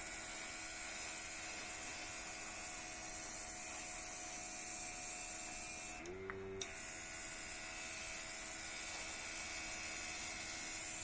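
Cordless rechargeable mini air compressor running while the airbrush sprays paint: a steady hiss of air over the motor's hum. About six seconds in the trigger is released for a moment, the hiss stops and the motor's pitch rises, then spraying resumes.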